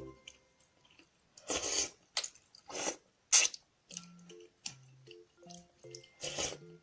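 Close-up eating sounds of tomato-and-egg noodles, chewed and slurped in about five short bursts, over soft background music.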